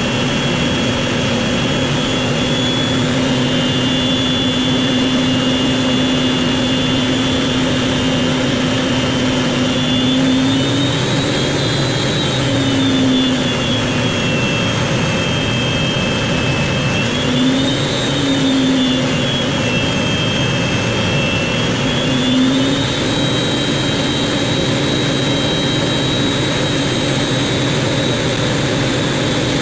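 BAC 167 Strikemaster's single Rolls-Royce Viper turbojet running at taxi power, heard from the cockpit. A steady rush of engine noise with a high whine whose pitch rises and dips a few times, about a third of the way in, around the middle and again near the end.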